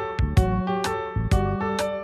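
Background music: a keyboard melody over a steady beat of about two strikes a second.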